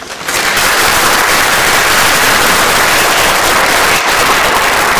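Audience applauding: dense, steady clapping that starts suddenly just after a sharp knock at the very start.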